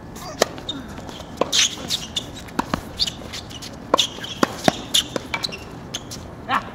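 A doubles tennis rally: a serve struck about half a second in, then a string of sharp racket-on-ball hits and ball bounces on the hard court, quickening to about four hits in a second during a volley exchange at the net.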